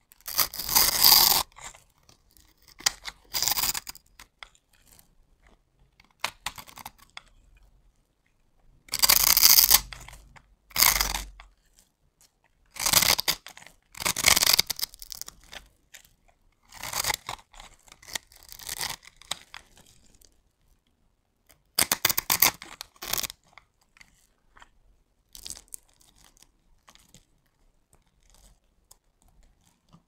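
Knife cutting through a bar of soap scored into a grid, the small soap cubes breaking off with crisp crunching. The crunching comes in bursts a few seconds apart, the loudest in the first two seconds and around nine to eleven seconds in.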